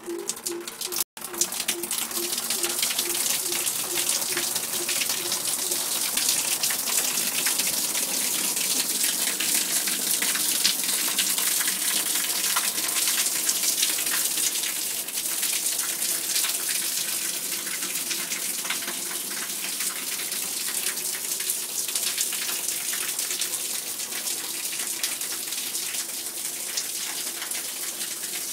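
Water running and splashing steadily, a dense hiss, after a brief dropout about a second in.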